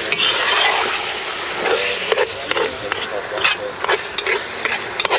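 Minced beef sizzling and frying in a cast-iron Dutch oven, with a metal spoon scraping against the pot as it is stirred every second or so.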